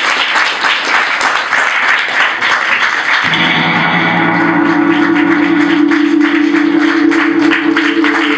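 Audience applauding. About three seconds in, a steady droning chord starts suddenly under the clapping and holds.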